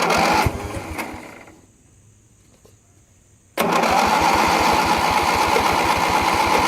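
Ford YT16 riding mower's starter cranking the engine, fed from a car battery through jumper cables, with the choke wide open. A short burst of cranking dies away, then about two seconds later a longer steady spell of cranking starts with a fast, even rhythm.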